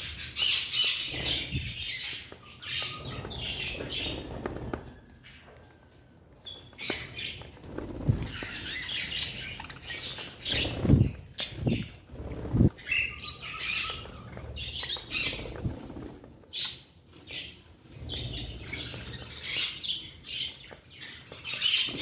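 A small flock of budgerigars chattering and calling at close range in uneven bursts, with a short lull about a quarter of the way in. A few low thumps come around the middle.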